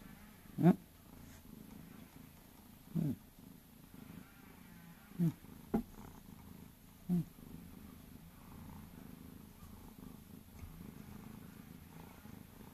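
Domestic cat purring steadily while rubbing its face against a chair, with a few short louder sounds scattered through, one a sharp click.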